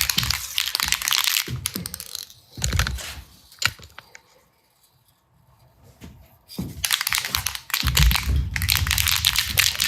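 An aerosol can of clear sealer spraying in hissing bursts: a long spray at the start, a short one around three seconds in, a pause, then a long steady spray from about seven seconds on.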